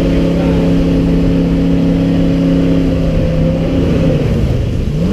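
Jet boat engine running steadily at speed, its pitch falling about four seconds in.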